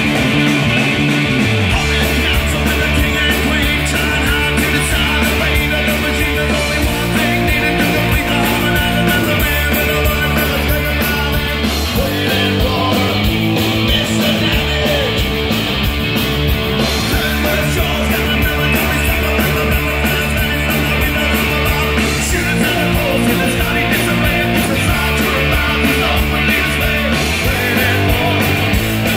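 Live rock band playing loud: distorted electric guitars, bass guitar and drum kit, with a lead singer.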